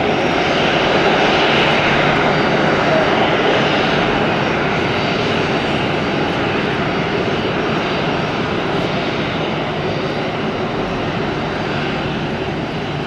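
Jet engines of a Boeing 737-300 (CFM56 turbofans), a loud steady rumble and rush that is strongest about a second or two in and then slowly fades.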